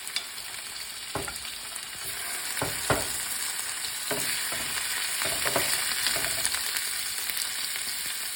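Chicken wings sizzling and frying in a pan with onion and garlic, with a steady high hiss that grows a little louder partway through. A utensil scrapes and knocks against the pan several times as they are stirred.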